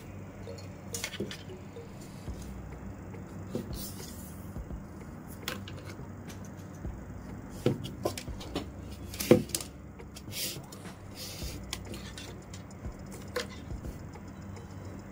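Scattered light clicks and taps from handling PE plastic rattan strands and the woven basket, with a sharper knock about nine seconds in, over a steady low hum.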